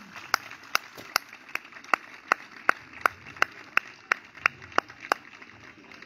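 Hand claps in a steady rhythm, about two to three a second, stopping about five seconds in.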